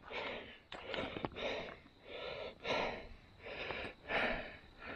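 A hiker breathing hard while walking, rhythmic breaths in and out close to the microphone, with a few faint clicks of footsteps on the trail.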